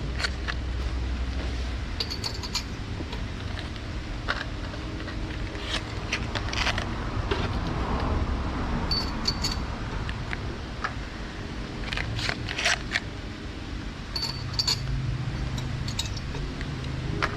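Scattered metal clinks and taps of hand tools and spark plugs being handled during a spark-plug change, some ringing briefly, over a low steady hum.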